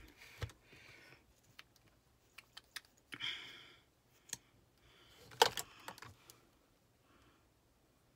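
Small plastic clicks and taps from handling an eyeshadow compact and applicator, with soft rustles between them and one sharper click about five seconds in.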